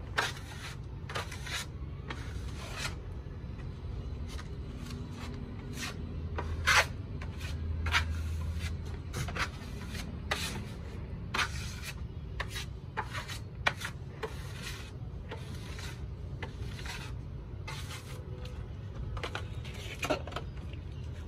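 Steel putty knife scraping across a cement-rendered wall as a second coat is spread on, in short rasping strokes at an uneven pace of about one a second.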